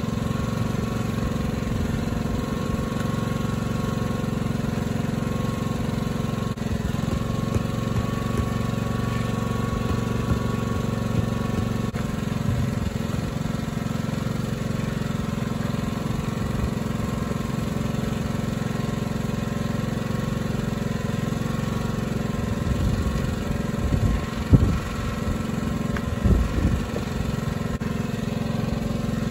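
A small engine running steadily at an even idle, with a couple of short knocks near the end.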